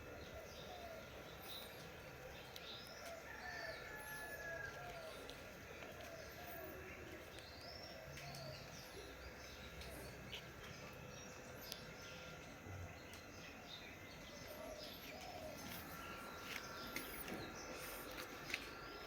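Several birds chirping and calling in many short, high notes and quick up-and-down whistles, over a faint steady hum.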